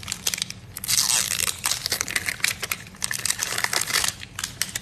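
Plastic shrink-wrap crinkling and crackling as it is peeled off a Mini Brands capsule ball, a dense run of crackles that stops about four seconds in.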